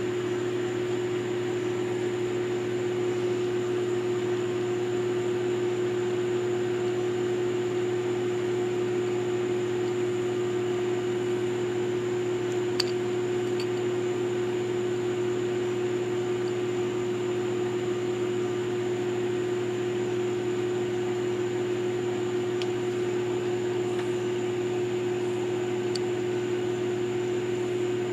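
Steady machine hum with a constant mid-pitched tone and no change in speed, with a couple of faint clicks about halfway through.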